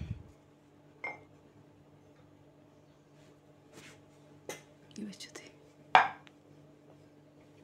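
A few light, scattered knocks and clinks of kitchen utensils as roti dough balls are handled on a steel bowl and board, the loudest about six seconds in as the wooden rolling pin is taken up. A low steady hum runs underneath.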